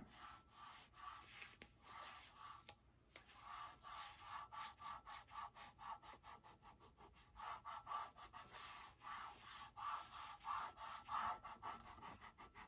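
Hands rubbing transfer tape down onto a tumbler to stick a vinyl name: faint, quick repeated strokes of fingers over the tape, several a second, a little stronger in the second half.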